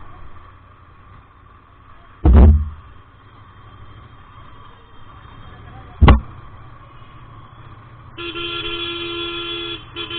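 A vehicle horn sounding steadily for about two seconds near the end, with a brief break, over low road noise. Earlier, two loud, sudden low thumps come about four seconds apart.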